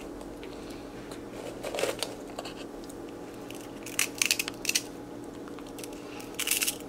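Baby capuchin monkey chewing puffed broccoli curl snacks: short bursts of crisp crunching about two seconds in, a longer run about four seconds in, and another near the end, over a faint steady hum.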